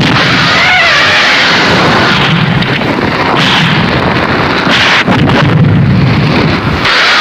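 Kaiju roar sound effect for the Horrorsaurus monster: several long, loud, wavering screeching roars in a row over a deep rumble.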